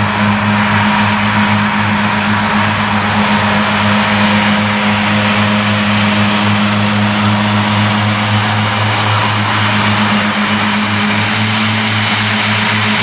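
Claas Cougar 1400 self-propelled mower running steadily while mowing grass: a constant diesel engine hum with a strong low tone, under an even rushing whir from the mower drives and cutting discs.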